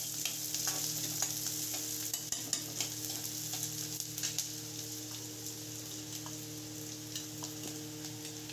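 Chopped onions and cumin sizzling in hot oil in a kadhai, with a spatula stirring, scraping and tapping the pan. The stirring clicks thin out about halfway through, leaving a steady sizzle.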